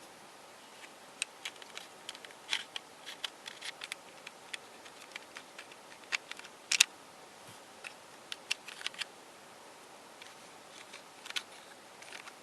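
Irregular small clicks and clacks of cast polyurethane resin puzzle pieces knocking together as a twisty puzzle is handled and taken apart, the sharpest click a little past the middle.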